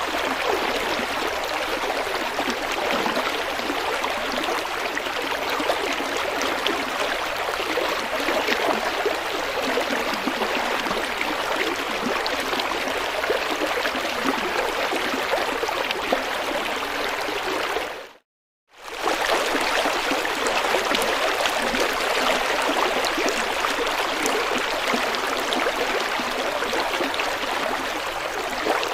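River water flowing and splashing over stones in a steady rush. It fades out to silence for under a second about eighteen seconds in, then comes straight back.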